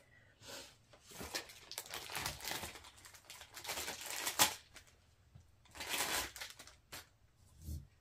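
Clear plastic wrapping crinkling in irregular bursts while hose and wand parts are handled, with a few sharp clicks, the loudest about four and a half seconds in.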